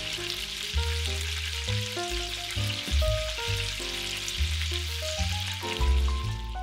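Food frying in a pan: a steady sizzle that cuts off abruptly at the end, with background music underneath.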